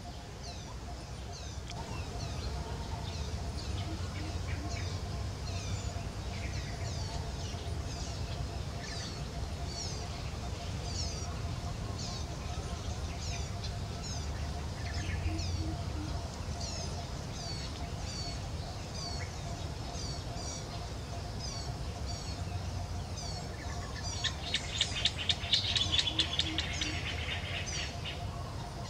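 Birds chirping: short, high, falling chirps repeating about twice a second over a steady low rumble. Near the end a louder, rapid rattling trill lasts about three seconds.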